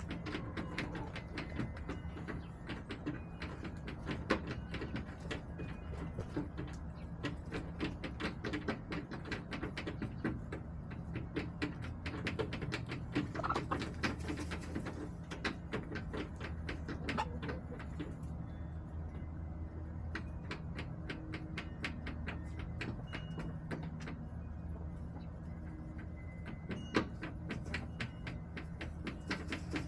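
Backyard hens: rapid, irregular tapping and clicking throughout, with a few short soft calls near the middle, over a steady low hum.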